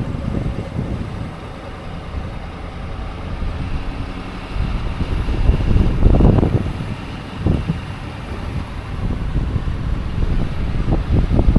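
A vehicle engine running low and steady under gusts of blizzard wind buffeting the microphone, the gusts loudest about six seconds in.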